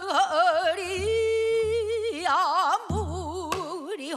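A woman singing pansori in a full voice, holding long notes with a wide, wavering vibrato and breaking them into short phrases, over a low accompaniment. It is a singer in the middle of practising.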